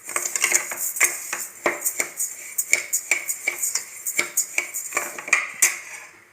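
A spoon scraping and knocking against a pan in quick, irregular strokes while stirring rice and moong dal being dry-roasted. The strokes stop shortly before the end.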